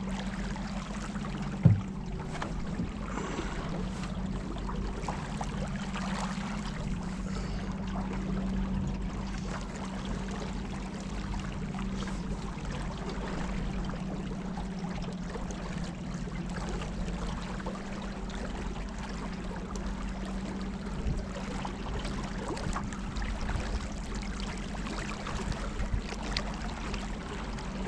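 Boat motor running at a steady hum, with water rushing along the hull; a single sharp knock about two seconds in.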